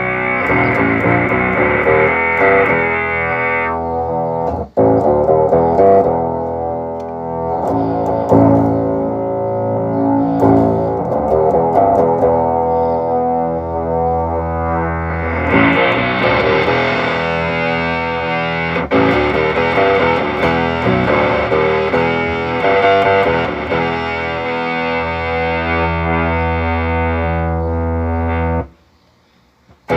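Electro-Harmonix Bass MicroSynth pedal processing played notes into a synth tone, working again after its overvoltage repair. The notes are sustained and change pitch in steps, and the tone turns brighter about halfway through as the filter settings change. It breaks off briefly near the start and falls almost silent just before the end.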